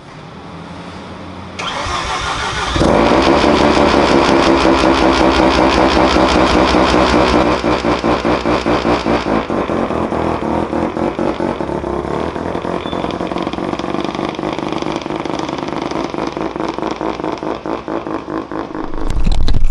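Mazda RX-7 FD's 13B rotary engine cranked over about one and a half seconds in, catching about a second later and running loud, then settling into a choppy, pulsing rotary idle; near the end the car pulls away.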